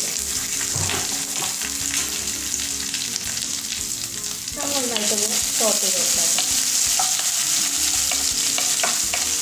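Coconut pieces, curry leaves and chillies sizzling steadily in hot coconut oil in a ceramic-coated wok, with a wooden spatula stirring them near the end.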